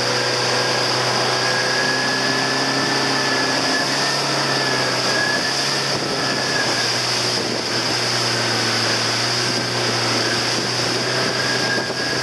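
Motorboat engine running steadily at speed, a constant drone with a high whine, over the hiss of the boat's churning wake.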